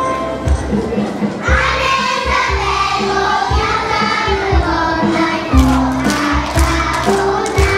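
A group of young children singing together into microphones over backing music with a steady beat; the children's voices come in about a second and a half in.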